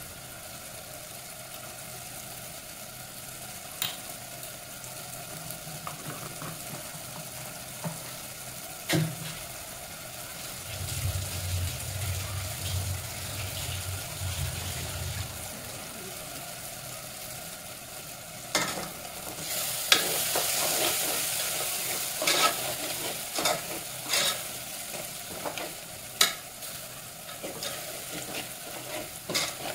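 Onion-tomato masala sizzling as it fries in an aluminium pressure-cooker pot, with a steel spoon stirring and scraping it and clinking against the pot. The sizzle grows louder for a few seconds about two-thirds of the way in, and a low hum sounds for a few seconds near the middle.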